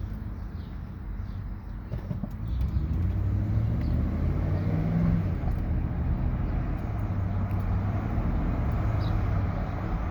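2009 Ford Expedition's 5.4-litre V8 running with a steady low hum that gets louder about two and a half seconds in, the noise the owner is asking about alongside its warning lights.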